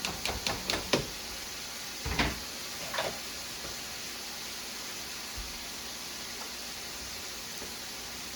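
Kitchen clatter as drained canned chili beans go into a cooking pot: a quick run of light clicks for about a second, then two heavier thuds about a second apart, over a steady low hiss.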